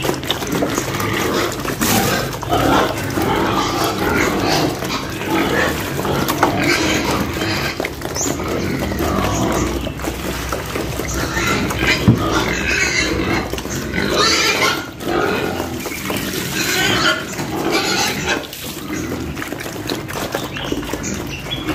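A group of piglets eating soaked bran mash at a trough, a steady, busy mix of wet eating noises and pig grunts.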